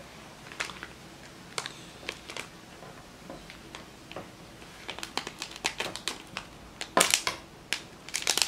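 Small plastic bags of parts being handled and opened: scattered clicks and crinkles, sparse at first and busier in the second half, with the loudest crinkle about seven seconds in.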